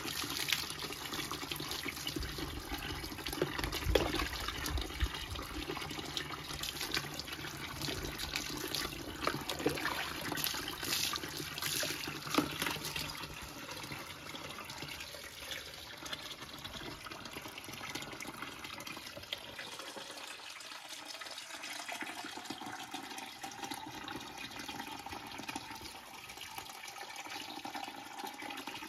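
Water running and splashing as a dog is washed, with irregular splashes in the first half. The flow is quieter later, and a faint note rises slowly over the last several seconds.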